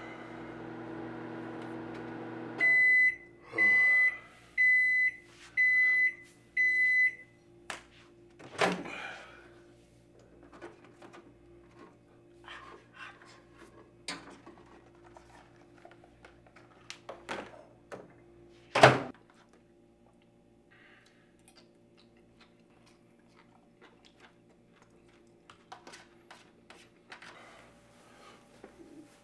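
Microwave oven running with a steady hum that stops about two and a half seconds in, then five beeps about a second apart signalling the end of the heating cycle. After that come a clunk as the door is opened, quiet handling clicks, and the loudest sound, a sharp clunk about nineteen seconds in as the door is shut.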